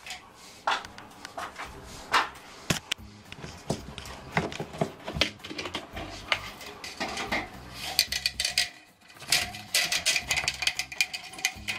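Hands working a flexible aluminium exhaust duct and wiring into a ceiling opening. Irregular metallic clicks, rattles and crinkling, which grow busier and brighter over the last few seconds.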